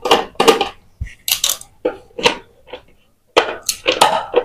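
A screwdriver turning out the screws of a mixer grinder's plastic base, with clicks, scrapes and a knock about a second in as the unit is handled.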